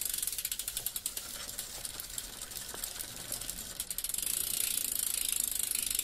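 Bicycle freewheel hub ticking in a rapid run of fine clicks, growing a little denser and louder about four seconds in.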